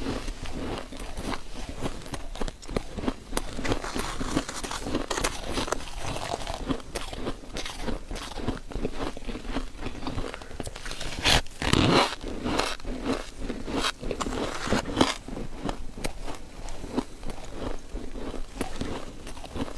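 Crushed ice being bitten and chewed: a dense run of crisp crunches and crackles, with a louder burst of hard bites about twelve seconds in.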